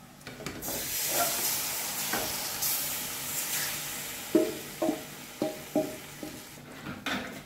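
Marinated chicken dropping into hot butter and oil with onions, setting off a burst of sizzling about half a second in that dies down over a few seconds. Then several short scrapes and knocks from the steel bowl and spoon as the rest of the marinade is pushed into the pan.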